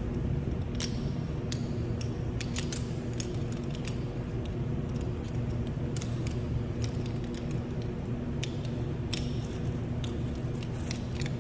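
Scattered sharp metallic clicks and clinks of carabiners and rope-rescue pulleys being handled and clipped together, over a steady low hum.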